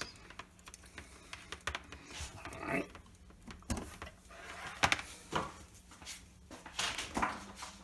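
Light, scattered clicks and knocks of a plastic jar and small parts being handled on a work surface, about half a dozen irregular taps over a faint steady hum.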